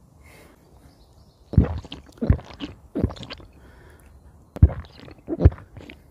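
Footsteps on a hill path: five heavy, unevenly spaced thuds, picked up close to the microphone.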